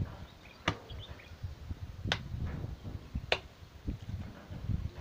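Hands packing wet clay into a wooden brick mould: dull low thuds of clay being pressed down, with three sharp slaps about a second apart.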